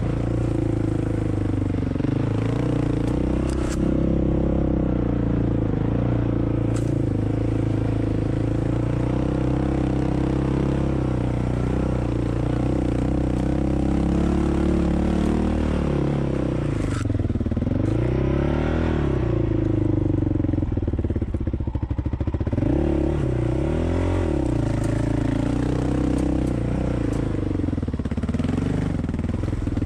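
Off-road vehicle engine running at low trail speed, its pitch rising and falling with the throttle several times in the second half, with a few sharp knocks.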